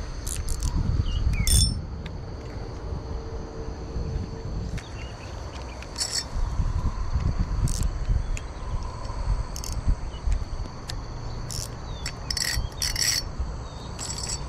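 Small bell on a fishing rod's tip jingling in short, scattered tinkles, a cluster of them near the end, over a steady chorus of insects and a low rumble.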